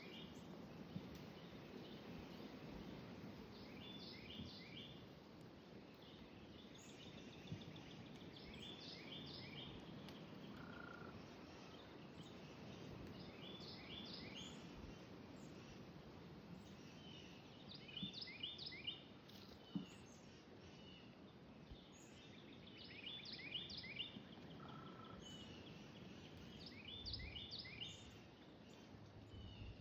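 A small songbird singing faintly, repeating the same short phrase of quick high notes about every four to five seconds over a steady low background hiss.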